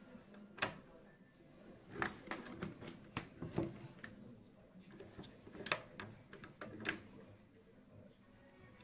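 Bolt action of a Snow Wolf Kar 98k spring airsoft replica worked by hand: a scatter of sharp metal clicks and clacks in several small clusters, with handling noise between them.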